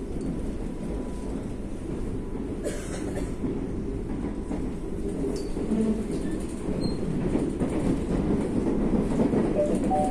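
Madrid Metro train running, heard from inside the carriage: a steady low rumble with rattle from the wheels and car body, and a brief hiss a little under three seconds in.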